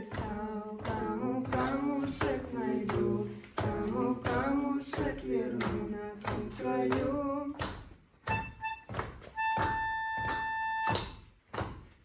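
A woman sings a slow, wordy song in Russian over a steady beat of knocks, about two or three a second. Her voice stops about two-thirds of the way in. The knocks carry on, and near the end an instrument holds one high, steady note for a second and a half.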